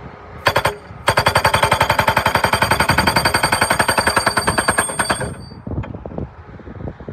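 Montana 1000E hydraulic post driver hammering a 6x6 wooden fence post into the ground. A brief burst of blows comes first, then a fast, even run of hammer strikes, about ten a second for some four seconds, which stops suddenly.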